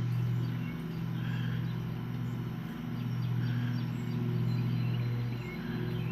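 Steady low hum of a motor or engine running, dipping briefly a few times, with a few faint high chirps above it.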